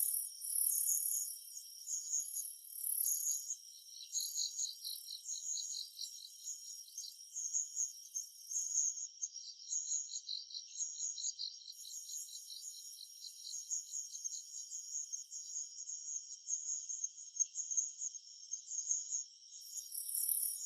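Summer-forest insect chorus: several high-pitched chirping trills overlap, and a higher buzzing layer drops out partway through and comes back near the end.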